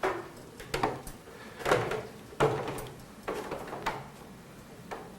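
A series of sharp knocks and clunks, about one a second, each with a brief ring after it.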